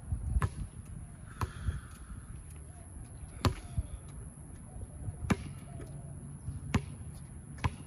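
Basketball bouncing on an outdoor hard court: about six sharp, separate thuds, spaced irregularly one to two seconds apart.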